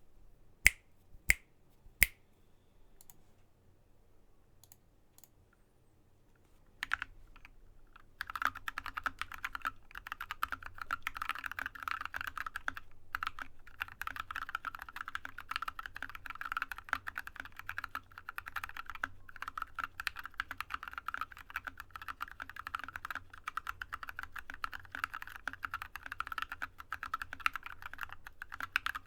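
Drop ALT mechanical keyboard with lubed Yok Polar Panda linear switches being typed on. Three sharp single keystrokes come near the start, then a few faint taps, and from about eight seconds in fast, continuous typing.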